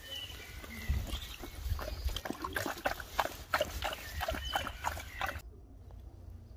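A Doberman splashing in water: a run of irregular short splashes that stops abruptly about five seconds in.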